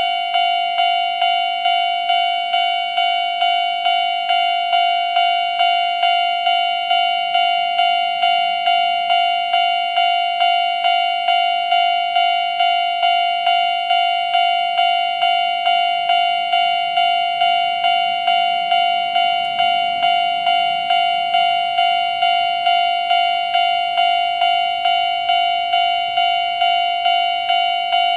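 Japanese railway level-crossing alarm ringing: the older-type standard electronic crossing bell at a fast pace, about two dings a second, each a bright ringing tone.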